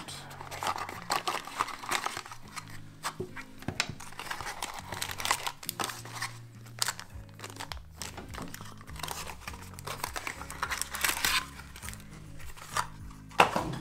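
Plastic bag and cardboard packaging being handled and opened, crinkling and rustling in irregular bursts, with a louder rustle near the end. Background music with low held bass notes runs underneath.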